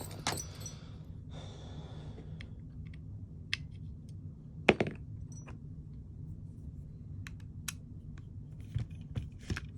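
Scattered light clicks and taps of small parts and tools being handled on an airsoft gun's gearbox, with one sharper click about halfway through, over a steady low hum.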